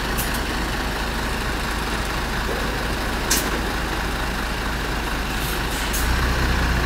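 Isuzu Erga Mio city bus's four-cylinder diesel engine idling at the stop, with several short sharp hisses of compressed air. The engine grows louder near the end.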